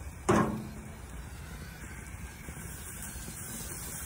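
Gas grill with steaks on it hissing and sizzling steadily, with a single sharp knock against the grill about a third of a second in, followed by a brief ring.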